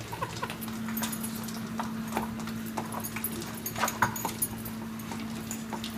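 Two miniature schnauzers eating dry kibble from their bowls: irregular short crunches, licks and knocks of the bowls on the floor, over a steady low hum.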